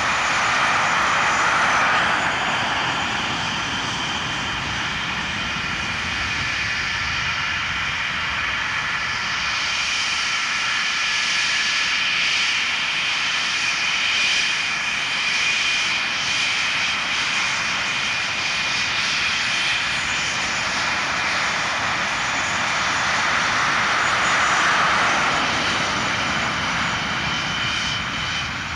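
English Electric Lightning jet fighters taxiing past, their twin Rolls-Royce Avon turbojets giving a steady high whine over a rushing hiss at taxi power. It swells louder about a second in and again near the end as the jets pass closest.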